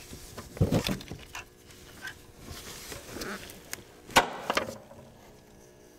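Hand-tool handling sounds at the timing belt tensioner as its locking pin is pulled: a few knocks and rubbing sounds about a second in, small clicks, and one sharp click about four seconds in.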